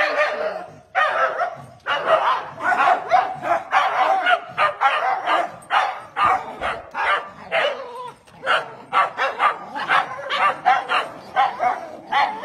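A group of small terriers, Scottish terriers and a Jack Russell-type, barking over and over: short, sharp barks in quick succession, several dogs overlapping.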